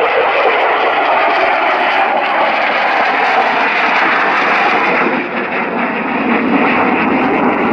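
Twin turbofan engines of a MiG-29 Fulcrum fighter in a display pass, giving loud, steady jet noise. About five seconds in, the sound loses its hiss and turns deeper.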